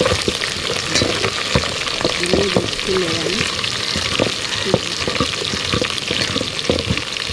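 Uggani tempering sizzling and frying in a pan on the stove while a ladle stirs it, with frequent short knocks and scrapes of the ladle against the pan over a steady hiss.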